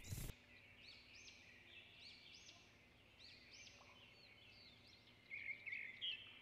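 Faint bird calls over near silence: short chirps repeating every second or so, a little stronger near the end.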